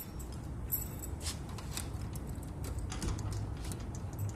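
Light metallic clicks and a brief jingle of keys as the door's newly fitted mortise lock is worked.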